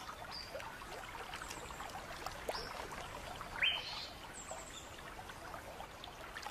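Stream ambience: water trickling, with a few brief bird chirps scattered through it. The loudest, a quick rising chirp, comes a little past halfway.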